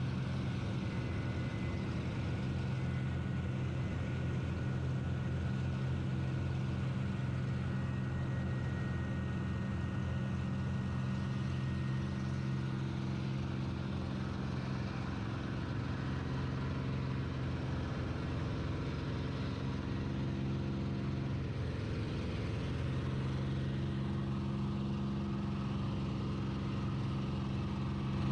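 P-51 Mustang's V-12 piston engine heard from inside the cockpit, a steady deep drone, briefly wavering in pitch about three quarters of the way through.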